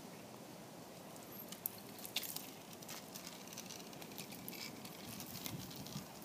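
Quiet outdoor background with a scatter of faint, light clicks and ticks from about a second and a half in.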